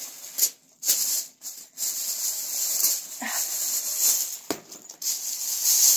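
Clear plastic wrapping crinkling and rustling in irregular bursts as makeup pouches are pulled out of it.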